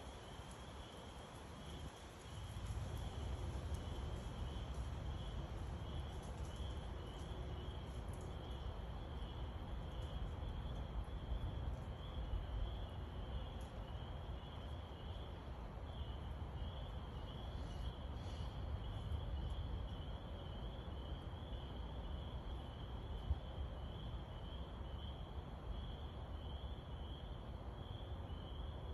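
Low, drawn-out rumble of distant thunder that swells up about two seconds in and rolls on with slow rises and falls. Over it runs a steady, high, pulsing chirping chorus.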